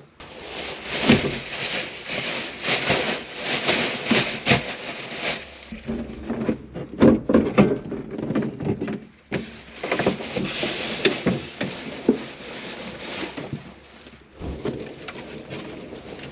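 Plastic dashboard and wiring loom being handled and shifted in a small truck cab: irregular rustling and scraping with many sharp plastic knocks.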